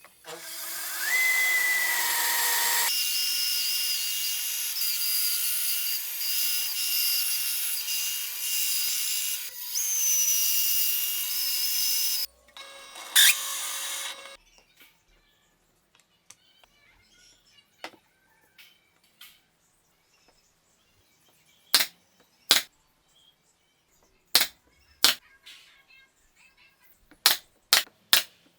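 Power drill running for about twelve seconds, its whine rising as it spins up near the start, then stopping. A string of sharp, separate knocks follows later.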